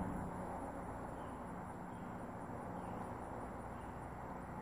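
Outdoor background ambience: a steady, even hiss with a faint low hum underneath.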